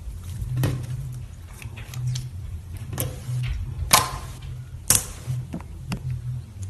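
Slime being handled, with a steady low hum underneath and about five sharp clicks and pops, the loudest about four and five seconds in.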